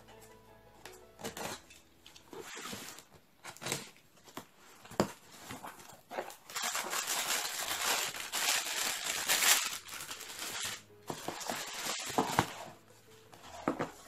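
Box cutter slitting packing tape and cardboard flaps handled, in scattered scrapes and taps, then bubble wrap and plastic packaging crinkling loudly for several seconds in the middle as items are lifted out of the box, with more crinkling and a couple of knocks near the end.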